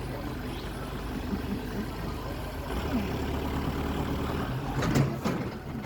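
An engine running steadily, its low hum shifting about three seconds in, with a few sharp knocks about five seconds in.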